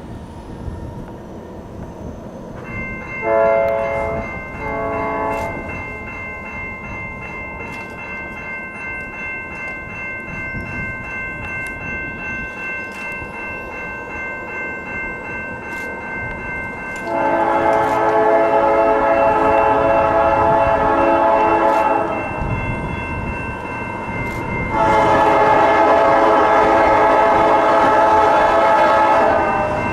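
Canadian Pacific freight train's locomotive air horn sounding: two short blasts a few seconds in, then two long, loud blasts in the second half. Under the horn there is a steady high ringing tone from about three seconds in, and a low rumble of the train.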